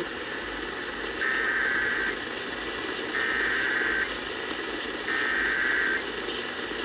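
Emergency Alert System SAME header: three bursts of data tone, each about a second long and about a second apart, over a steady radio hiss. It marks the start of a broadcast flash flood warning.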